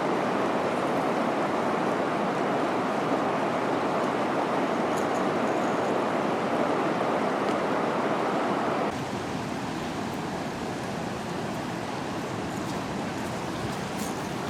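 Steady rush of fast-flowing river water, an even hiss without any engine tone, which drops abruptly to a quieter level about nine seconds in.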